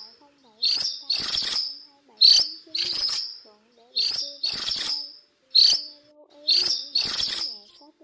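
Flock call of the phường chèo trắng lớn, a minivet: loud, short, high calls repeated about once a second, often in pairs.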